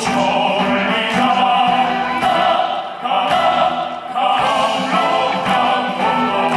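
Live military band music.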